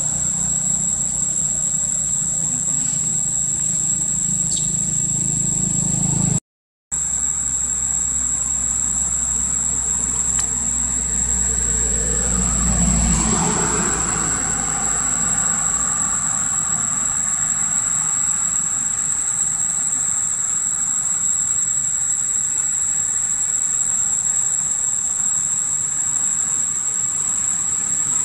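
Steady outdoor background drone with a constant high whine, plus a low engine-like rumble that fades out about halfway through. The sound breaks off briefly for a moment near seven seconds in.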